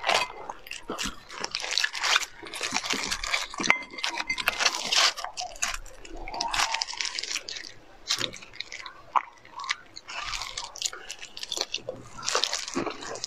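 Close-up eating sounds: meat and cartilage torn off the bones of a stewed animal head by gloved hands, with crunching bites and chewing in irregular crackly bursts.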